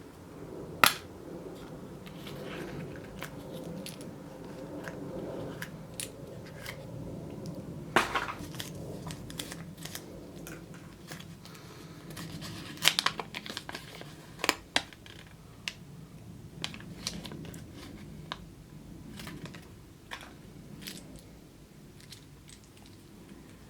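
Kinder Surprise egg being unwrapped and opened by hand: the foil wrapper crinkles and tears, with sharp clicks and snaps about a second in, at about eight seconds, and several more between thirteen and fifteen seconds.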